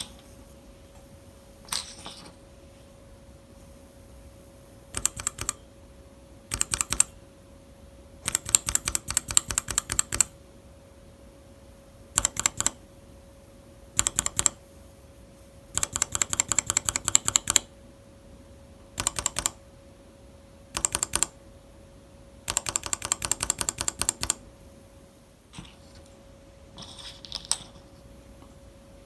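Mechanical keyboard switches being typed on in about nine short runs of rapid keystrokes, some brief and some lasting a couple of seconds, with pauses between them. A faint steady hum lies underneath.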